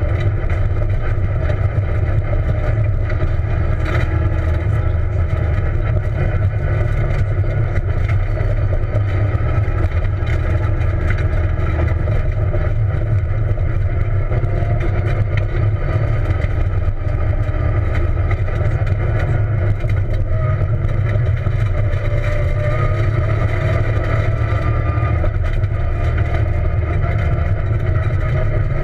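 Peugeot 207 rally car at speed on a dirt rally stage, heard from inside the cabin: the engine runs hard over a constant low rumble from the tyres and the dirt road. The engine note rises and falls slightly with the driving.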